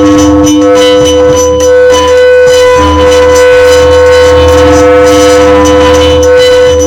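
Loud music from an Oreo commercial intro, with long held notes over a pulsing low beat.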